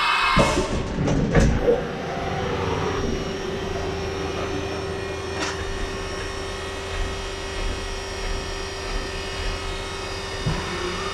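Haas VF1 CNC vertical machining centre running, with a few loud, short mechanical moves with gliding whines in the first two seconds, then a steady hum.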